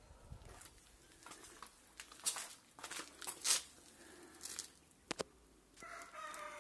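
Soft rustling and crinkling handling noises with a few sharp, brief crackles, then a person's voice starts near the end.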